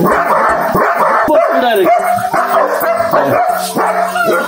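A dog barking loudly and repeatedly in quick succession.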